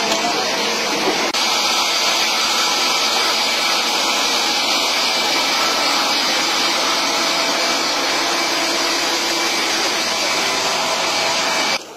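Steady, loud whirring of running heavy machinery, from the truck-mounted rig's engine and hydraulics as it holds and lowers a concrete shaft ring. The noise cuts off suddenly near the end.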